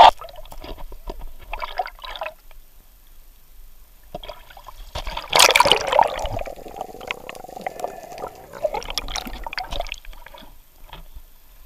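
Seawater splashing as the camera goes under the surface, then muffled underwater bubbling and gurgling, which starts suddenly and loudly about five seconds in and carries on until the camera comes back up near the end.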